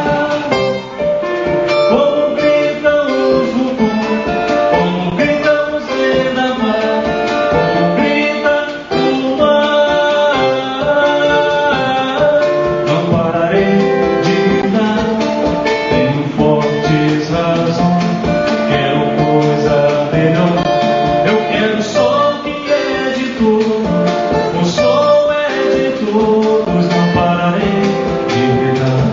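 Live performance of a song: guitar playing with singing over it, continuous music with no gaps.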